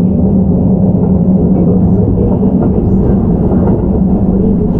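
Keihan 13000 series electric commuter train running along the line, heard from inside the car: a loud, steady rumble of wheels on rail with a constant low hum.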